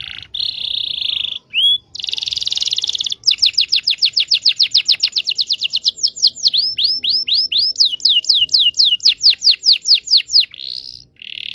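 Domestic canary singing long rolling trills: fast runs of falling whistled notes, about seven a second. The runs alternate with short buzzy, rattling phrases.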